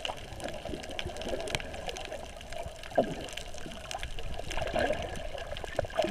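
Underwater water noise heard through a camera held below the surface: bubbling and gurgling with scattered sharp clicks, and a louder gurgle about three seconds in.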